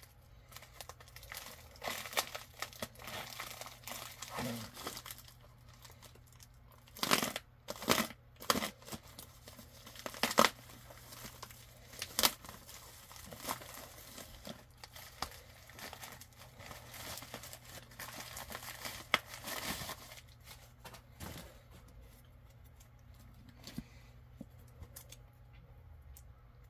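A padded mailer being torn open and crinkled by hand: irregular rustling with several sharp rips, the loudest about a third of the way in, settling into quieter paper handling near the end.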